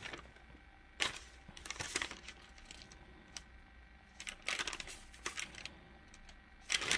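Faint handling noises: a few scattered clusters of light clicks and rustles, about a second apart at first and then near the middle and the end.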